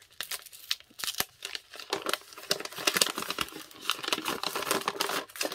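Paper wrapping crinkling and rustling as it is pulled open by hand, with many quick, irregular crackles.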